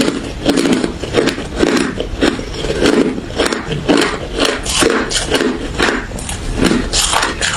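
Close-miked crunching of refrozen crushed ice and freezer frost being bitten and chewed, a rapid run of crisp crunches, several each second.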